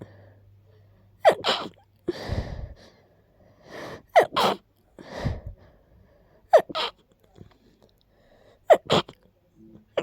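A person with a stuffy nose from a cold sneezing sharply four times, each sneeze a quick two-part burst. Two longer noisy rushes of breath come between the first three sneezes.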